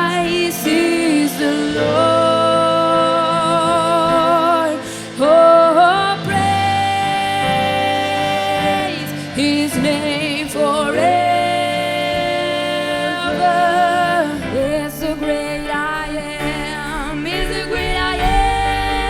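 A live band of keyboards, guitar, bass and drums plays under a female lead singer, who holds long notes with vibrato and sings sliding runs. The bass and drums come in more strongly near the end.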